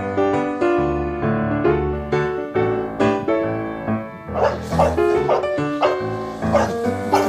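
Piano background music. From about four seconds in, a dog barks repeatedly over it, about twice a second.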